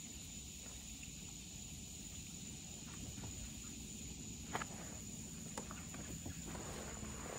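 Faint outdoor ambience: a steady high whine over a low rumble, with a few soft clicks, the clearest about four and a half seconds in.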